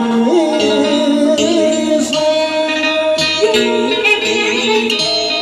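Live southern Vietnamese tân cổ music, a continuous melody of sustained notes that slide and bend in pitch over steady accompaniment.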